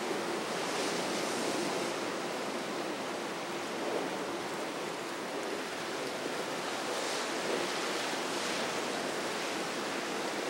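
Steady rush of churning water from a large motor yacht's wake and bow wash, with its hiss swelling now and then.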